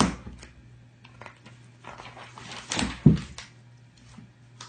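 A magazine's paper rustling as a cat paws at it, with a sharp knock at the start and a louder thump about three seconds in.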